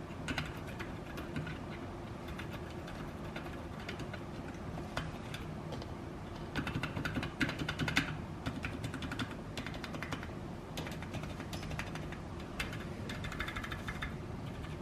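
Typing on a 60% mechanical keyboard with Gateron Red Silent linear switches in an aluminium case on a carbon-fibre plate: a run of muffled keystrokes. The typing gets denser and louder about halfway through.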